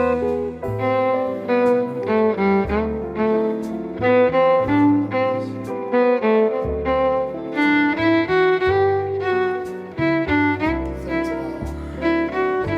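Background music: bowed strings playing a rhythmic melody over low bass notes.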